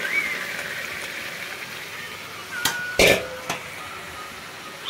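Mutton keema sizzling steadily in a kadhai as diced potatoes, tomatoes and peas go in, then a steel spatula knocks against the pan three times about three seconds in, the middle knock the loudest.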